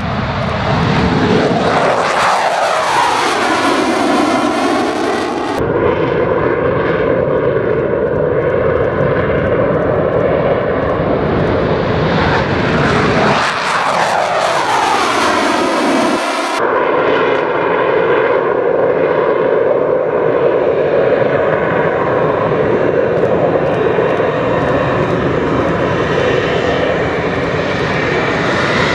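F/A-18 Hornet fighters, twin-engined jets, taking off one after another with loud, continuous jet engine noise at take-off power. Twice the tone sweeps downward as a jet climbs past.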